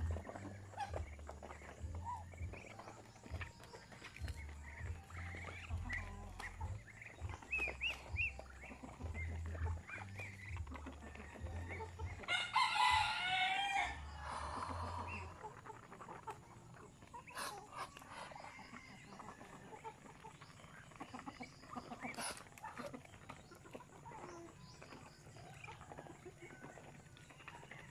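Farmyard fowl: Muscovy ducks feeding on scattered grain, with many short pecking clicks and brief soft calls. A rooster crows once, loudly, about twelve seconds in.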